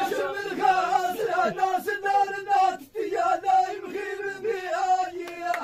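Men chanting Amazigh sung poetry in long, held melodic lines, the inshaden style, with a short break about three seconds in.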